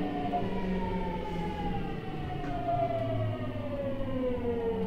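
Hitachi GTO-VVVF traction inverter and motors of a Seibu 6000 series train, heard inside the car over the rumble of the wheels. Several stacked whining tones fall steadily in pitch, as they do when the train is slowing.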